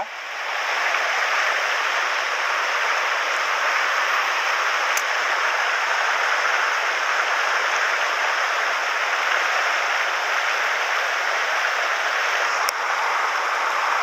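Shallow mountain stream rushing over a stony riffle: a steady, even hiss of running water, with two faint clicks, one about five seconds in and one near the end.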